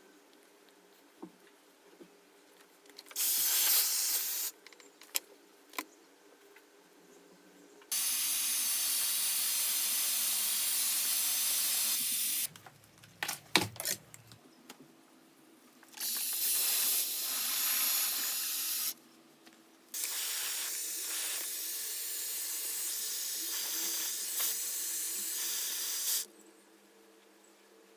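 Hair styling brush blowing air in a steady hiss, switched on and off several times, each run lasting a few seconds and the longest about six. A few clicks come in one of the pauses.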